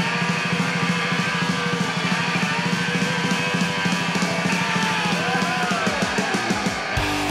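Rock music with a busy drum kit driving it. About seven seconds in, a heavier bass-and-guitar part comes in.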